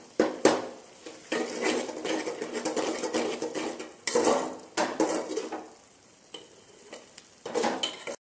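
Metal ladle stirring and scraping frying mushroom masala in a metal cooking pot, in irregular strokes with a sizzle underneath, quieter for a stretch past the middle.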